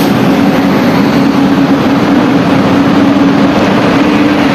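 Electric-hauled express train with LHB coaches rolling slowly past along the platform as it arrives: a steady, loud running noise of wheels and coaches with a constant low hum underneath.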